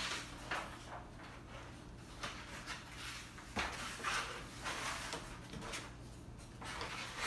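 Paper sheets rustling and cardboard packaging being handled and slid about: a string of short, irregular rustles and scrapes.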